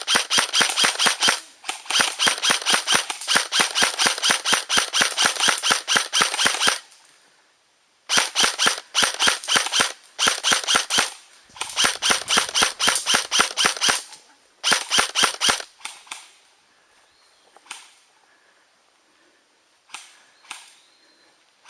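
Airsoft gun firing on full auto: a long string of rapid sharp cracks for about seven seconds, then three shorter bursts, then a few single shots near the end.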